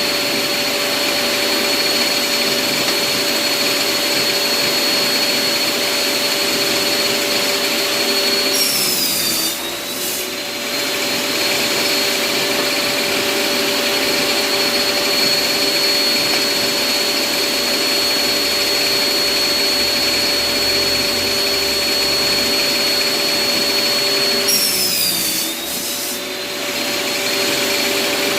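Bosch table saw running steadily with a high, even whine. Twice the motor's pitch sags for about a second and comes back up, as the blade takes the load of a cut through wood.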